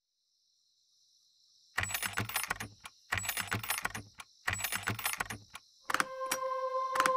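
Sound effect of three bursts of rapid clicking and rattling, each about a second long, with short pauses between them. About six seconds in, ringing tones set in and music begins.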